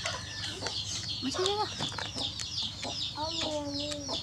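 Chickens clucking and peeping: a steady run of short, high chirps, with two longer, lower calls, one about a second and a half in and one near the end.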